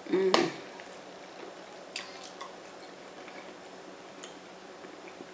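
Close-miked eating sounds: a short voiced 'mm' at the start, then a few faint, scattered mouth clicks while chewing.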